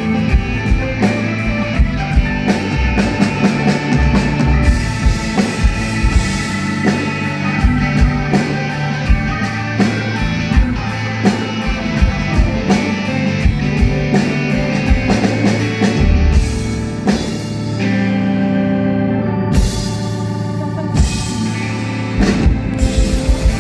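Live rock band playing an instrumental passage, with a drum kit keeping a steady beat under electric guitar and bass. The drums drop out for a few seconds past the middle, then come back in with quick hits near the end.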